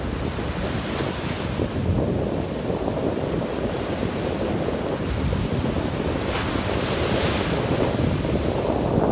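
Ocean surf breaking and washing up the beach in a steady rumble, with wind buffeting the microphone; a wave's hissing wash swells up about two-thirds of the way through.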